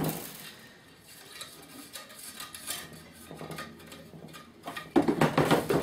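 Wire scraping, clicking and clinking against a bonsai training pot as tie-down wires are handled through its drainage holes. The sound is faint through the middle, with a louder burst of clattering about five seconds in.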